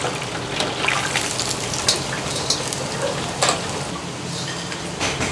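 Chicken pieces deep-frying in a fryer of hot oil: a steady bubbling sizzle, broken by several sharp metal clinks as a metal tool and a perforated wok strainer knock against the fryer and wok while the pieces are turned and lifted out.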